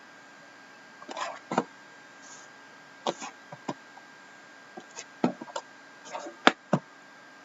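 Sealed cardboard trading-card boxes being handled on a table: a series of sharp knocks and clicks with short rustles of the wrapping.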